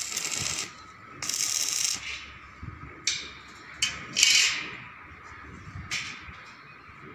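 Electric arc welding crackling in two short bursts of about a second each near the start, tack-welding the steel of a spiral staircase, followed by several sharp metal clinks and knocks, the loudest a little past four seconds in.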